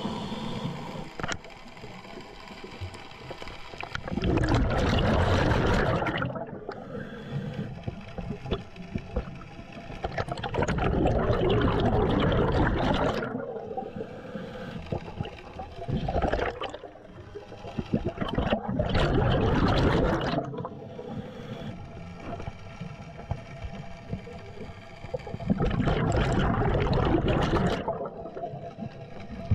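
Scuba regulator exhalation bubbles heard underwater: five bubbling bursts of one to three seconds each, a diver's out-breaths, with a quieter hiss between breaths.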